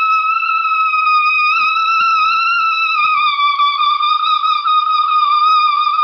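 Loud air horn sounding in one long unbroken blast, a single high pitch that wavers slightly.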